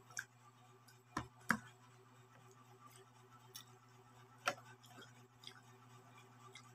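Eating sounds from a man eating rice and noodles by hand from a plate: a few scattered sharp clicks and taps, the loudest two in quick succession about a second and a half in, over a steady low hum.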